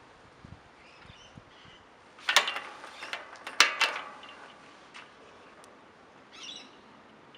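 Tubular pool gate on a soft-close hinge swinging shut and latching: two sharp clacks about a second apart, each followed by a brief rattle, then a small click.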